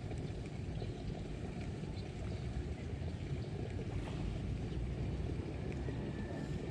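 Steady low rumbling wind noise buffeting the camera microphone, with no other clear sound above it.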